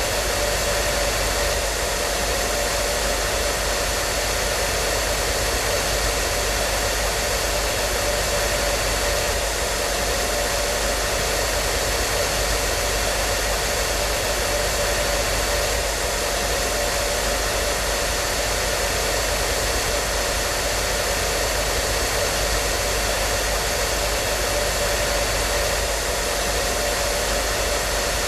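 Hair dryer running continuously: a steady rushing of blown air with a faint motor whine held at one pitch.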